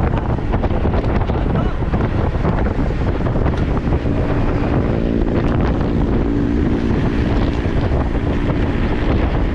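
Heavy wind buffeting the microphone of a camera moving with a road-bike group ride, a steady rumbling rush. From about four seconds in, a steady droning tone joins it for several seconds.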